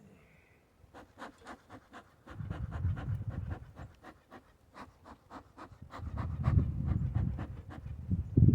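Rapid, irregular clicking and crackling, a few clicks a second, with a low rumble of wind on the microphone in two stretches.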